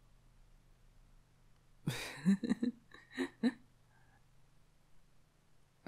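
A young man's close-miked voice making a few short wordless vocal sounds about two seconds in. Near-silent room tone comes before and after them.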